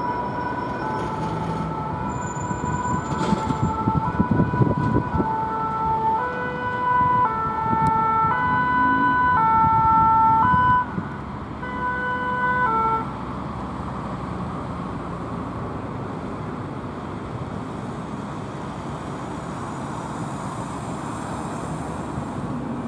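French fire brigade rescue ambulance's two-tone siren alternating between its two notes, getting louder as the vehicle approaches and passes. It cuts off suddenly about 13 seconds in, leaving the steady sound of traffic and the van's engine.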